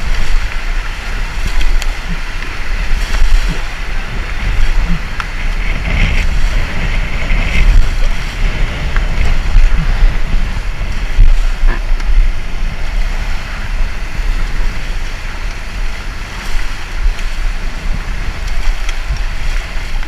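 Fast-flowing Ganges river water rushing past, with wind buffeting the action camera's microphone in an uneven low rumble.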